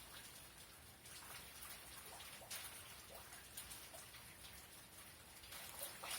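Faint rain falling during a thunderstorm, with individual drops and drips ticking at irregular intervals.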